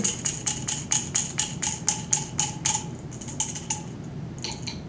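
Rapid light tapping on a glass graduated cylinder holding water and copper pennies, about four or five taps a second, each with a brief ring, done to knock trapped air bubbles loose from the pennies. The tapping pauses briefly near the end, then a few more taps follow.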